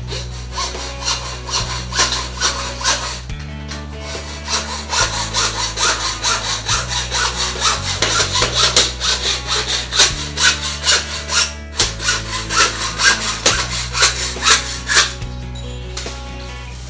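Hand saw cutting with quick, even back-and-forth strokes, about two a second, stopping shortly before the end, over background music with a steady bass line.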